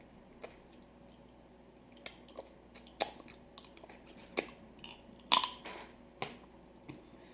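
Boiled crawfish claw shell being cracked open, with irregular sharp cracks and crunches mixed with chewing; the loudest crack comes about five and a half seconds in.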